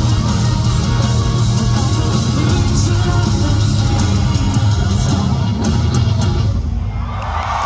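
Live heavy rock band playing: distorted electric guitars, drums and a female singer. The band sound drops away near the end and crowd cheering rises.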